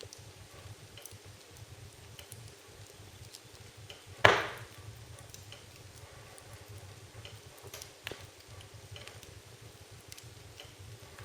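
Burning firewood crackling with scattered small ticks, and one loud sharp pop a little over four seconds in.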